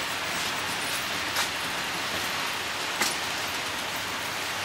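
Märklin model trains rolling along the layout's track: a steady rushing hum, with two sharp clicks about one and a half seconds in and about three seconds in.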